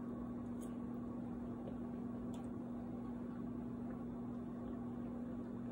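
Steady low hum with a constant tone over even background hiss, as of an appliance running in the room, with a couple of faint clicks.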